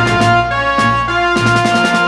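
Background music: an upbeat tune with brass-like melody notes over a steady beat.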